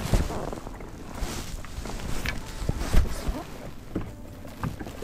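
Gloved hands handling a freshly caught crappie in a fishing boat: irregular knocks and rustles, a sharp knock at the start and another about three seconds in, over a low rumble.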